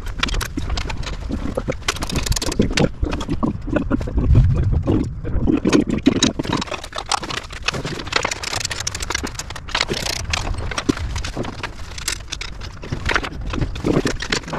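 Irregular metal clinks, knocks and scrapes as bolts are fitted and tightened by hand to fix an outboard motor to its transom lift bracket, with heavier thumps about four to six seconds in.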